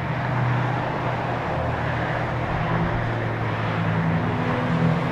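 Steady outdoor background noise with a low motor-vehicle engine hum.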